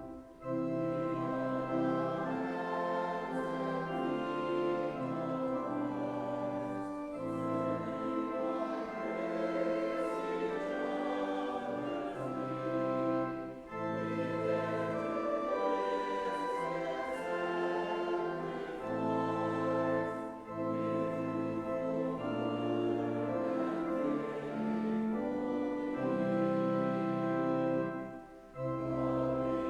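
A church congregation singing a hymn to organ accompaniment. The chords are held, with short breaks between lines.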